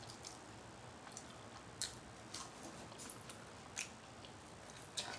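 Faint handling sounds while food is picked up: about five short, soft clicks spread out over a few seconds.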